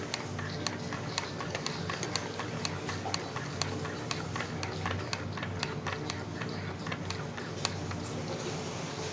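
Metal spoon stirring coffee in a ceramic mug, clinking against the inside in an uneven run of light clinks, a few a second, over a steady low hum.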